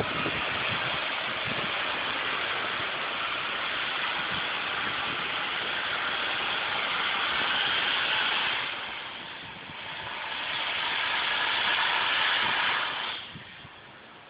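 A motor vehicle's engine revving hard as it pushes through deep snow. The noise swells twice and drops away near the end.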